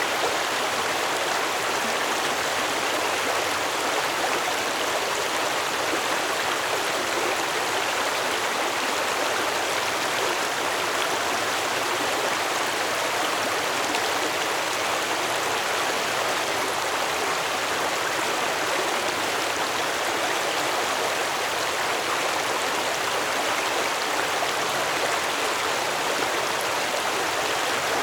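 Stream water flowing over rocks, a steady rushing babble with no pauses.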